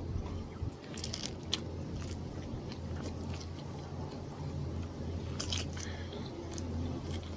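Close-miked chewing of a large rice paper roll: wet mouth and lip sounds with scattered short clicks and light crunches, over a steady low hum.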